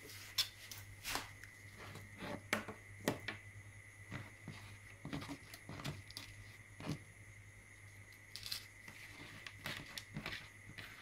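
Small plastic-and-metal parts being handled on a cutting mat: irregular clicks, taps and light scrapes as pin headers and a perfboard are picked up, worked between the fingers and set down. A faint steady hum and a thin high tone sit underneath.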